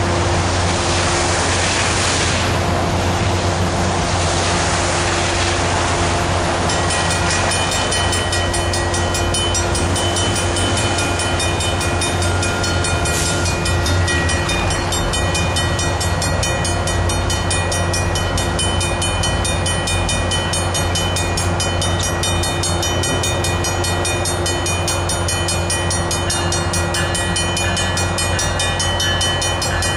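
BL20GH diesel-electric locomotive running steadily with a constant low rumble. A hiss over the first several seconds gives way to a set of high steady tones from about seven seconds in.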